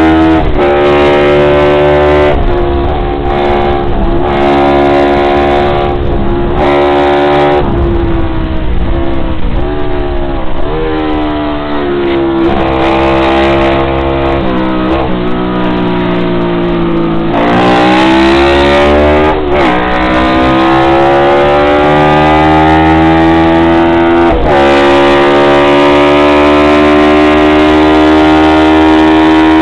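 Honda CB350-based four-stroke parallel-twin racing engine at high revs, heard on board: its note drops and breaks several times in the first few seconds as the rider changes gear, then climbs steadily under hard acceleration, falls sharply at an upshift and climbs again near the end.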